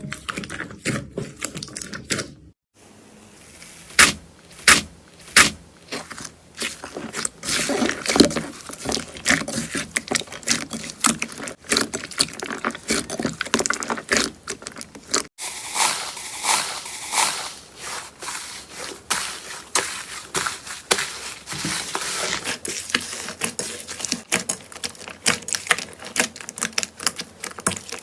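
Slime being squished and pressed by hand, giving quick irregular sticky clicks and crackling pops. The sound breaks off briefly twice, about 2.5 and 15 seconds in.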